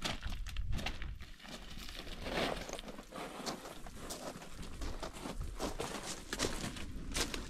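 Footsteps crunching on loose gravel and rock: an irregular run of crunches and small stones clattering underfoot as hikers walk up a rocky wash.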